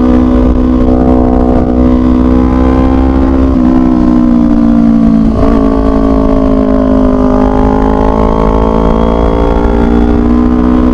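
2018 Kawasaki Ninja 250's parallel-twin engine running on the move, its pitch rising and falling with the throttle, with a brief dip about five seconds in. A faint high whine ('ngik') comes in near the end, which the rider likens to a supercharger whine on opening the throttle.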